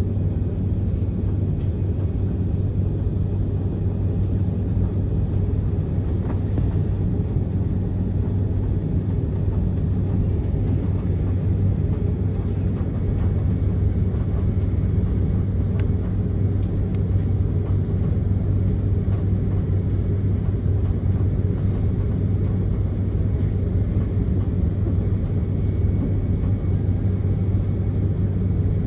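Jet airliner cabin noise while taxiing after landing: a steady low rumble and hum of the engines at idle and the cabin air system, unbroken throughout, with a few faint clicks.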